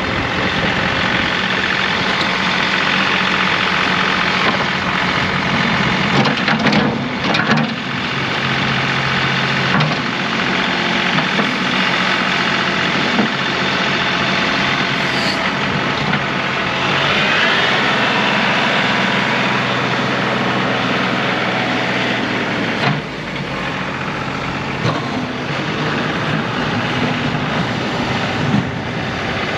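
John Deere 2038R compact tractor's three-cylinder diesel engine running steadily at an even pitch, with a few brief clunks about a quarter of the way in and again later.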